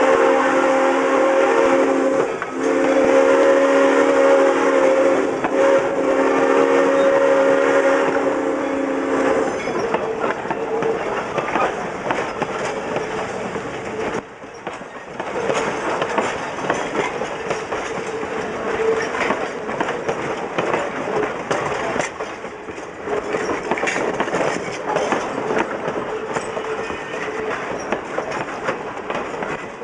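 Chime whistle of steam locomotive No. 97, a 2-8-0 Consolidation, sounding several tones at once: a short blast, then a long one of about seven seconds. After the whistle stops, passenger coaches roll by with a steady rumble and the wheels clicking over rail joints.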